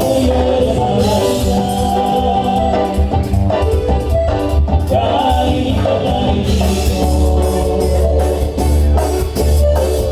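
Music with a singing voice over a steady bass and a regular drum beat.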